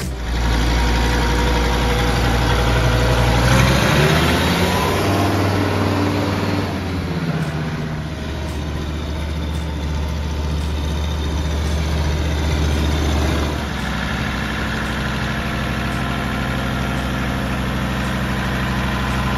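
Kubota ME5700 tractor's 2.7-litre diesel engine running, rising in pitch as it revs up about four seconds in, then running steadily under way. The engine note shifts about thirteen seconds in.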